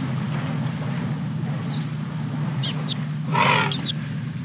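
A short, loud wild animal call, about half a second long, about three seconds in, over a steady low hum, with small birds chirping briefly now and then.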